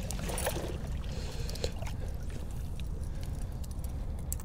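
Shallow river water splashing and trickling as a salmon is handled in it, with a few faint clicks as a metal chain stringer is clipped through the fish's jaw, over a steady low rumble.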